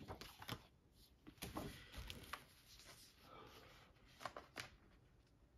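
Faint rustling of paper as the pages of a large vinyl-album booklet are turned and handled, with scattered light taps and two sharper clicks about four seconds in.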